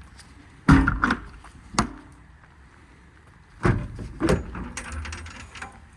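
Metal service-body compartment doors and their latches clunking shut and open: two pairs of sharp knocks with a short rattle after the second pair.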